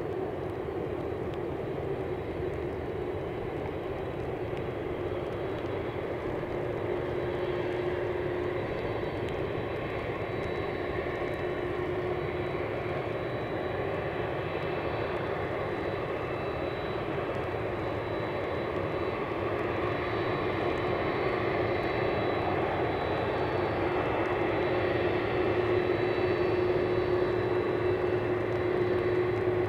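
A Boeing 767-300's twin jet engines whining at low taxi thrust as the airliner taxis: a steady rumble with high whining tones, slowly growing louder as it comes nearer.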